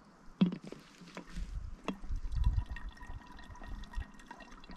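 Water trickling and dripping from a handheld squeeze filter into a plastic bottle. Handling knocks come about half a second in and again near two seconds, and a low rumble sets in after the first second.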